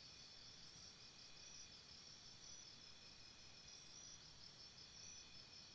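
Near silence, with a faint, steady high-pitched chirping.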